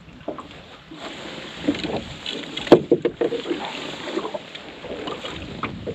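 Handling noises in a small boat: rustling and scattered knocks, with one sharp knock a little under three seconds in, over a steady hiss of wind and water.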